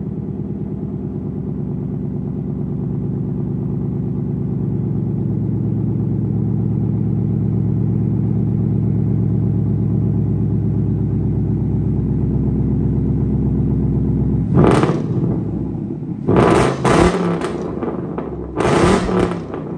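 Ford Mustang with an aftermarket exhaust idling steadily, then revved in four short throttle blips in the last few seconds.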